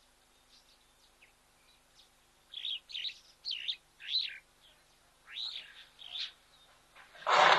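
Wild birds giving short chirping and whistled calls in quick runs, starting a few seconds in. Near the end a loud, breathy blast: an elephant blowing air out through its trunk.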